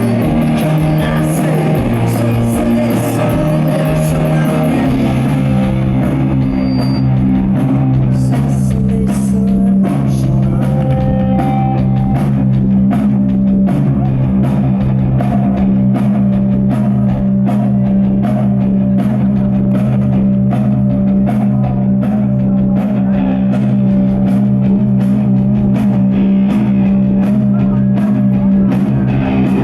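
Live rock band playing loud: heavy guitars and bass holding low notes under a steady drum beat. A dense cymbal wash in the first few seconds thins out about six seconds in, leaving the low notes and the evenly spaced drum strikes.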